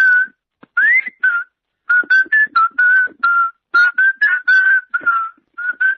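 A person whistling a rapid string of short, clipped notes at a high, nearly steady pitch, a few a second, with an upward-swooping note about a second in.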